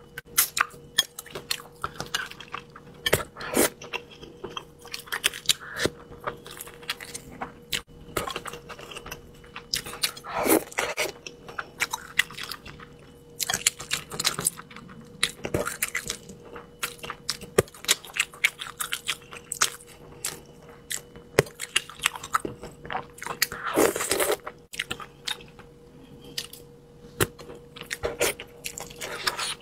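Close-miked mouth sounds of a person eating spicy braised fish: wet chewing and biting, with many short sharp clicks and smacks. A faint steady hum runs underneath.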